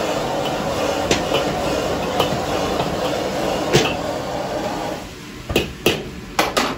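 Wok-burner roar and sizzling as braised meat is stir-fried in a carbon-steel wok, with the metal ladle clicking against the wok now and then. About five seconds in the burner noise drops away, and several sharp metal knocks of ladle on wok follow.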